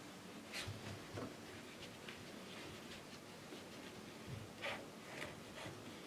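Faint scattered rustles and light scrapes, a handful of them, over a low steady hiss in a closed-up small space.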